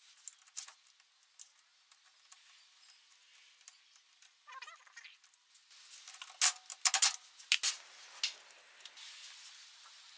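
Scattered light clicks and metallic clinks of hand tools and fasteners working on the car's stabilizer bar bracket, with a quick run of louder, sharper clinks about six to seven seconds in.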